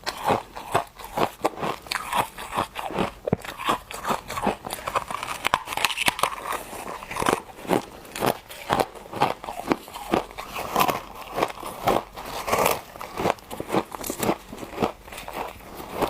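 Refrozen humidifier frost chunks crunched between the teeth, close up: a steady run of sharp, crackly bites and chewing, several crunches a second.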